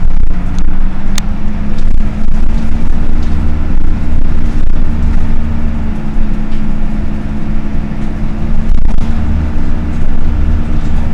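Dennis Dart SLF single-deck bus running stationary with its engine cooling fan on: a steady low diesel rumble under a constant droning hum, with a sharp click about a second in.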